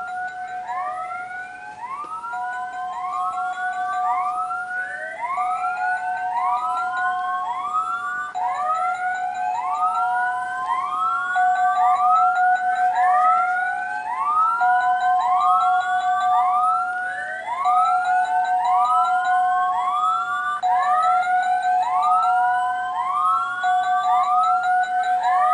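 Siren-style alert sound effect played through a laptop's speakers: a steady tone under overlapping rising whoops, about two a second.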